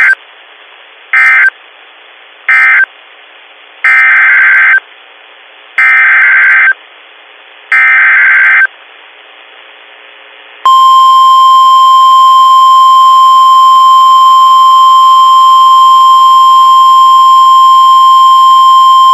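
NOAA Weather Radio Emergency Alert System tones from a weather radio: three short SAME data bursts that close one warning, then three longer SAME header bursts that announce the next, with faint static between them. From about ten seconds in, the steady 1050 Hz weather radio warning alarm tone sounds.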